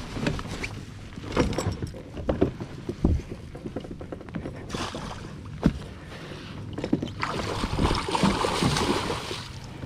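Scattered knocks and thumps, then about seven seconds in a hooked muskie thrashing and splashing at the surface as it is scooped into a landing net beside the kayak.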